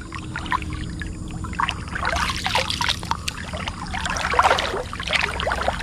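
Shallow river water sloshing and splashing close to a camera held at the surface, with irregular bursts of splashing in the middle, as someone moves through the water. A low steady rumble runs underneath.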